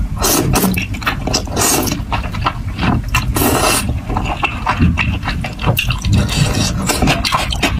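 Close-miked eating sounds: thick noodles in spicy sauce slurped in several times and chewed, with many wet mouth clicks and smacks. Chopsticks stir the noodles in the bowl near the end.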